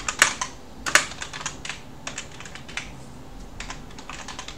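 Computer keyboard being typed on in quick irregular runs of key clicks, with a couple of harder strokes just after the start and about a second in.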